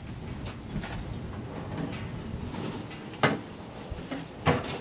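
Two sharp knocks about a second and a half apart, over faint low handling noise.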